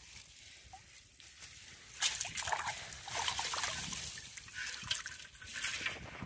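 Water trickling and dripping out of a mesh net trap as it is lifted and handled in river water, with light sloshing; it starts about two seconds in after a quieter opening.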